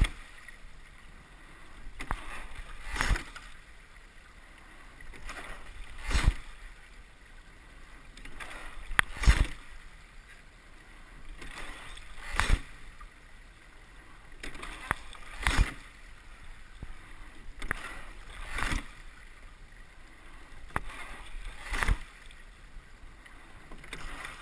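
Double scull being rowed at a steady, low stroke rate. A sharp knock from the boat comes with each stroke, about every three seconds, over a steady rush of water and wind.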